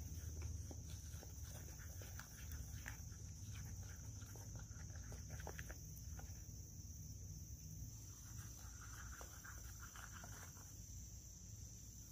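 Faint scraping and tapping of a wooden stick stirring melted pine pitch and charcoal in a small metal tin, over a steady high-pitched drone of insects.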